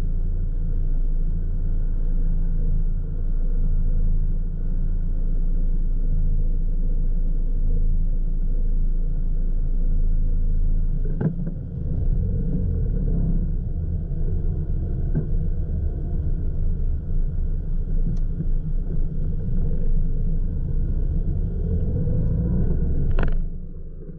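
Car engine idling while stopped, heard from inside the cabin as a steady low rumble. About halfway through there is a click, then the engine picks up as the car pulls away, its pitch rising and falling. Near the end a sharp knock, and the sound drops suddenly.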